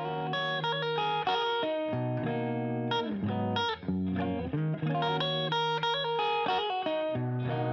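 Music played on plucked electric guitar, a melody of short notes over low bass notes.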